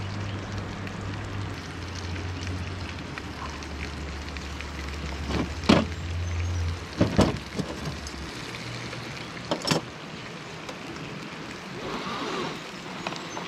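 Steady hiss of bacon frying in a pan on a portable gas stove. Three sharp metallic clicks come from pliers working treble hooks onto a small timber lure. A low hum drops out about seven seconds in.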